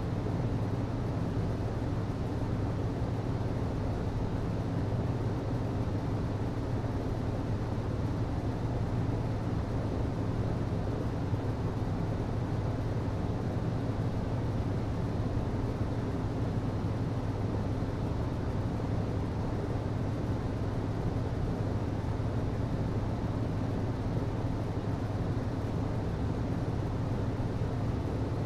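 HVAC system running steadily: a constant low hum with airflow noise over it, unchanging throughout.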